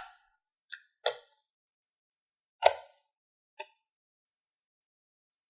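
Slime being handled: a series of short, sharp wet plops and clicks, about five in all, the loudest about two and a half seconds in.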